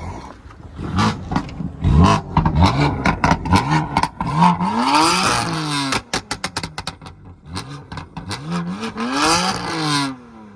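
BMW M3 F80 twin-turbo straight-six with an equal-length exhaust revving hard several times, its pitch climbing and falling, with the biggest revs about halfway and near the end. Sharp pops and crackles from the exhaust come between the revs, thickest as the revs drop just after the halfway mark.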